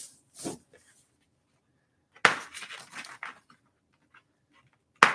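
Shipping packaging on a boxed e-bike being handled: a sharp snap about two seconds in and another near the end, each followed by about a second of crackling and rustling.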